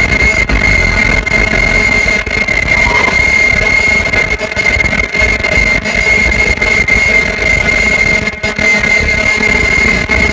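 Ultrasonic non-woven pants making machine running: a steady, loud, high-pitched whine over a constant mechanical rumble.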